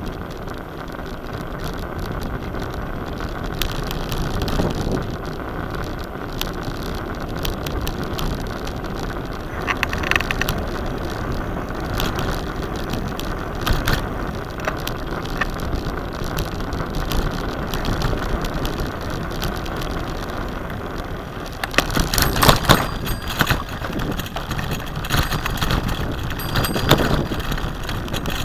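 Bicycle riding with a steady rush of tyre and wind noise on asphalt. About twenty seconds in, it turns louder and rougher, with frequent knocks and rattles, as the bike runs onto a bumpy dirt track through tall grass.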